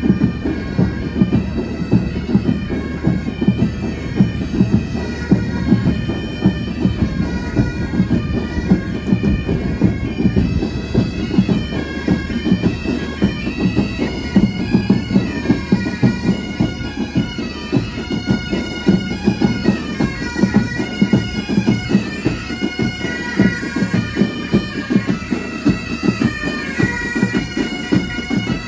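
Military pipe and drum band on the march: bagpipes play a melody over a steady drone, with drums beating a regular marching rhythm.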